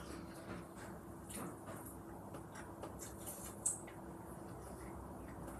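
Faint eating noises: small clicks of metal chopsticks and mouth sounds of chewing, with one sharper click about three and a half seconds in, over a faint steady hum.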